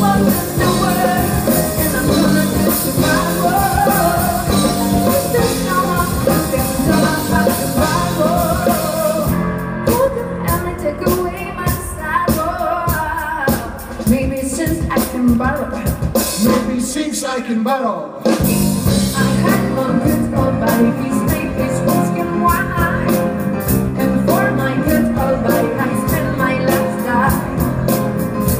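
Live band music with singing. Around the middle the bass and drums thin out for a few seconds, then the full band comes back in about 18 seconds in.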